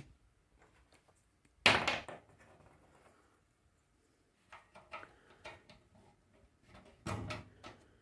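A sharp knock about two seconds in, then a few softer clicks and taps, as small plastic drum-support bearings are pushed and clipped onto the tumble dryer's sheet-metal back panel.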